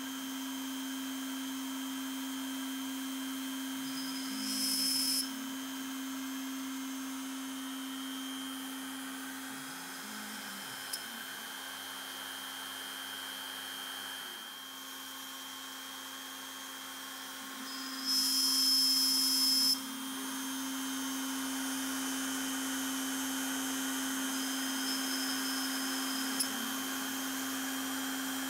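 Shapeoko 3 XXL CNC router's spindle running at a steady high whine while a small bit engraves a design into MDF. The sound gets briefly louder and hissier twice: for about a second near five seconds in, and for about two seconds past the middle.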